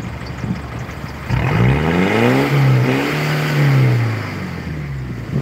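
Land Rover Discovery's Tdi diesel engine revved from idle: the pitch climbs about a second in, holds high for a couple of seconds, then falls back toward idle near the end. It is a blip of the throttle to show how healthy the engine is.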